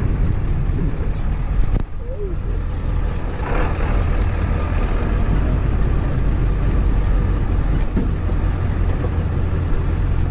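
Motor vehicle driving along: a steady low rumble of engine and road noise.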